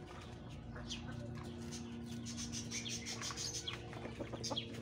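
A feeding poultry flock: many rapid, high peeps from ducklings with occasional low hen clucks, over a faint steady hum.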